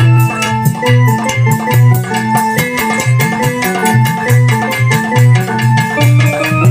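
Instrumental music: a melody of held keyboard notes, organ-like in tone, over a quick, steady drum beat.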